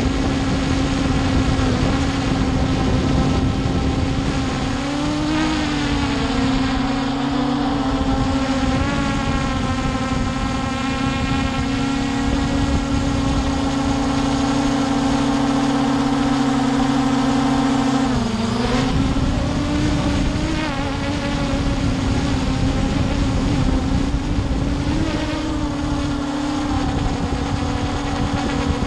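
Brushless motors and propellers of a Hubsan H501S quadcopter, recorded close up from a camera mounted under the drone: a steady buzzing hum whose pitch wavers as the throttle changes. About two-thirds of the way in, the pitch briefly drops and then climbs back.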